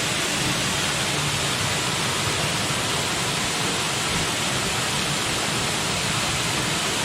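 Waterfall pouring into a small pool at its foot: a steady, even rush of falling water.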